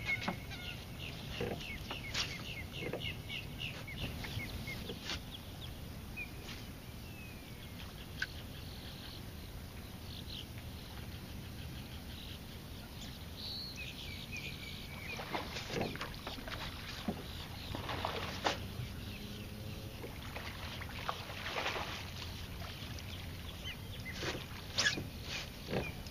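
Waterfowl calling over open water: geese honking through the first few seconds, then scattered bird calls. Several short splashes later on as a hooked bass thrashes at the surface and is pulled to the boat.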